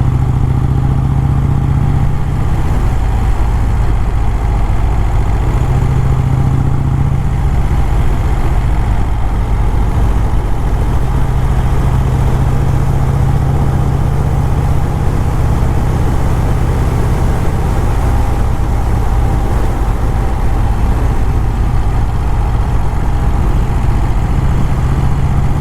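1951 Vincent Rapide's 998 cc V-twin engine running steadily while the motorcycle cruises at about 40 to 50 mph, purring along almost like it is idling.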